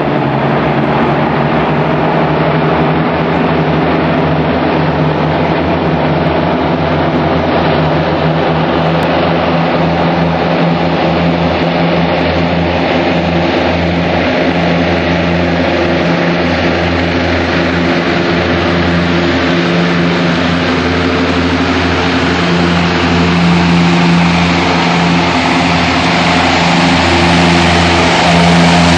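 Steady drone of a large propeller-driven firefighting flying boat as it skims low over the lake scooping water, getting a little louder near the end as it comes closer.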